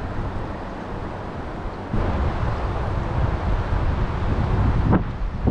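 Wind buffeting the microphone over the steady rush of a shallow river, growing louder about two seconds in, with a brief knock near the end.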